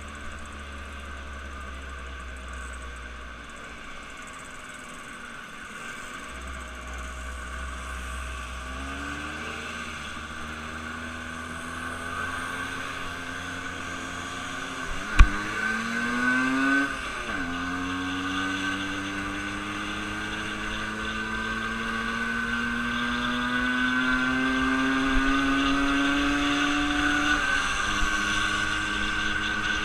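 A motor vehicle's engine accelerating, its pitch climbing steadily and dropping back twice, as at gear changes. There is one sharp click about halfway through.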